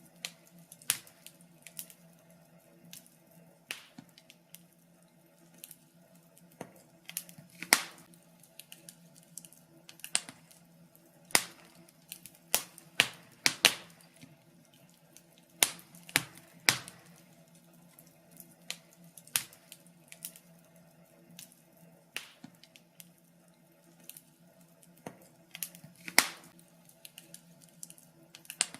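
Wood fire crackling: irregular sharp pops and snaps, a few a second and uneven in loudness, over a faint steady low hum.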